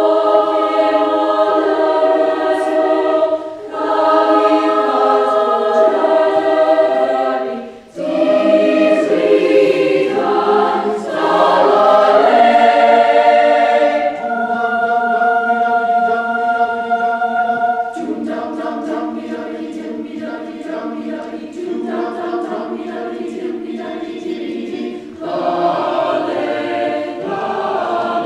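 Mixed choir singing held chords in close harmony, in phrases of a few seconds separated by short breaks. The phrases swell to their loudest a little before the middle.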